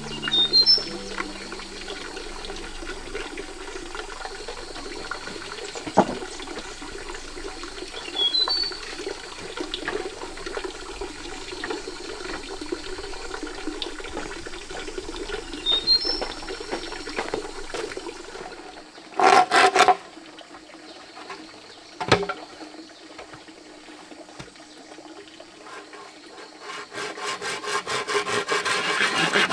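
A steady rush of running water, with a few short high chirps and a knock or two. Near the end, rhythmic rasping strokes start, about three to four a second, like a hand saw working through wood.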